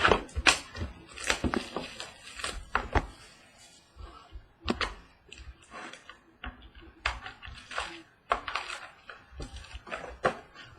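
Trading-card boxes and packs being handled and opened: irregular taps, clicks and crinkly rustling of cardboard and wrappers.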